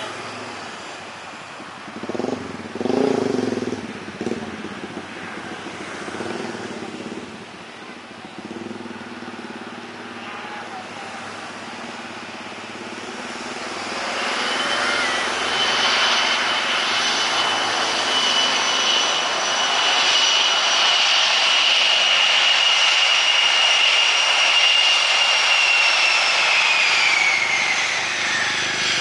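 Twin rear-mounted turbofans of a Challenger 850 business jet (CRJ200 airframe) on landing. A loud jet rush with a steady high whine comes in about halfway through and holds, then the whine falls in pitch near the end as the engines spool down on the rollout.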